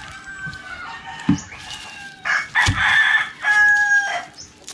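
A rooster crowing once, a call of about two seconds starting about two seconds in and ending on a held note. A sharp knock comes a second or so before it.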